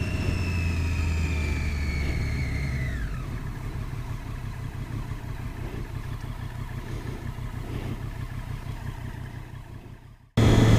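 Triumph Daytona 675R's three-cylinder engine note falling as the rider rolls off the throttle and slows. Then softer engine and road noise that fades away, cut off by a brief dropout near the end. Heard through a helmet-mounted camera.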